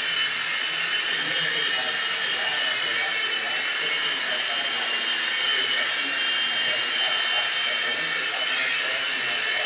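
Swift mini coaxial RC helicopter hovering: its small electric motors and twin rotors give a steady high whine over an airy hiss.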